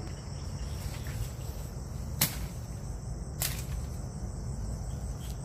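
Crickets and other night insects chirring steadily, with two sharp snaps about two and three and a half seconds in, the first the louder.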